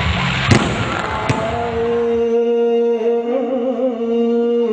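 Fireworks crackling, with two sharp bangs in the first second and a half, dying away about two seconds in. A long steady musical note takes over, wavering briefly in the middle.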